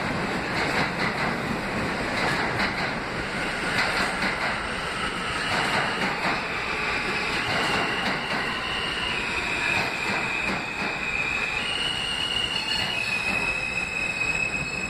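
R160 subway train running into the station beside the platform: a steady rumble and clatter of wheels over the rail joints. About halfway through, a high-pitched squeal joins in, holding a pitch and then stepping to another, as the train slows.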